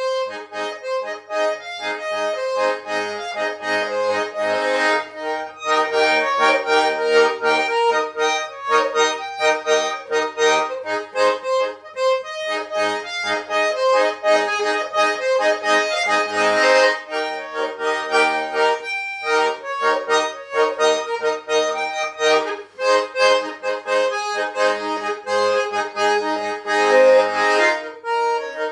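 Schwyzerörgeli, the Swiss diatonic button accordion, playing a traditional Swiss folk tune as a quick run of short notes over chords.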